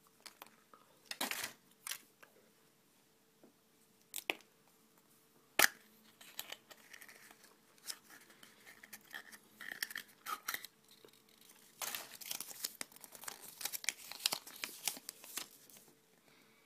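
Hands handling Play-Doh and plastic toy pieces: scattered clicks and taps, a sharp click about five and a half seconds in, and a few seconds of dense rustling near the end.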